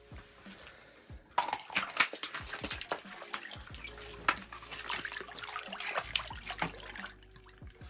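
Water splashing and sloshing in an ice-fishing hole as a released walleye drops through it and thrashes: irregular splashes starting about a second and a half in and dying away near the end.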